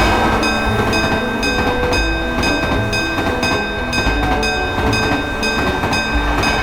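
Train passing through a level crossing, a loud steady rush with a regular beat about twice a second, over background music.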